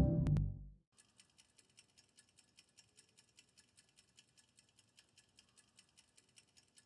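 Music fading out in the first second, then a clock ticking faintly with rapid, even ticks.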